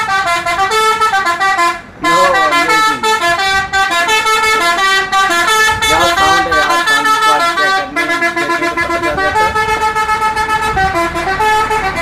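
Indonesian tour bus's 'telolet' multi-tone musical horn playing a fast tune: several notes sound together and jump to new pitches every fraction of a second. It breaks off briefly about two seconds in and dips again near eight seconds.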